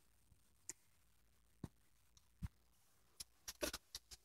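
Faint scattered clicks and ticks from handling a plastic window rain guard (vent visor), a few spaced about a second apart and then a quick cluster of clicks near the end.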